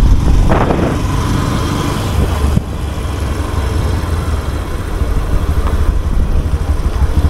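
Suzuki motorcycle engine running steadily under the rider on a town road. The engine note eases off about two and a half seconds in.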